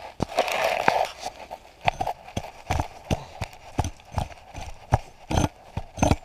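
Square-bladed digging shovel chopping into frozen soil: a run of dull, sharp thuds about two a second, some harder than others, after a short scraping rustle in the first second.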